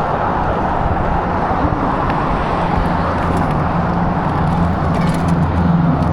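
Steady rushing wind and road noise over a running vehicle engine, whose low hum grows stronger over the second half.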